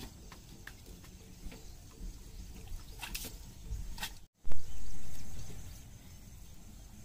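Mud and water sloshing and dripping with scattered small knocks, as men wade and work in deep mud around a mired tractor. A little over four seconds in, the sound cuts out for a moment, then a loud low rumble swells and fades over about a second and a half.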